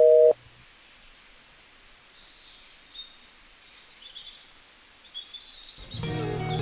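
A short, loud two-tone electronic beep from a mobile phone as a call is ended. Then faint birds chirping over quiet ambience, and strummed string music coming in near the end.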